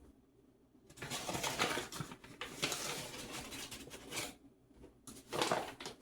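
Flour being measured out: rustling and pouring as cups of flour go into a bowl, in two spells, the longer one starting about a second in.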